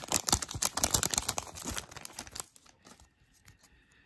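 Wrapper of an Upper Deck hockey card pack being torn open and crinkled by hand, a dense crackling that stops about two and a half seconds in.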